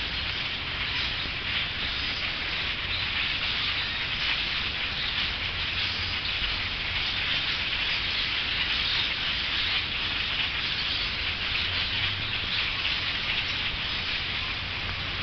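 A large flock of birds chirping all at once: a loud, continuous din of many overlapping high calls with no single voice standing out.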